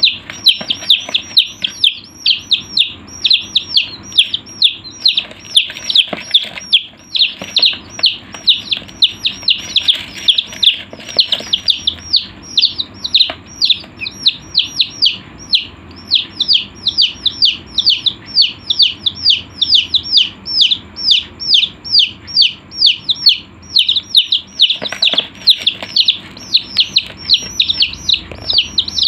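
Chicks peeping nonstop: a dense, rapid stream of high, shrill chirps, several a second, each dropping quickly in pitch.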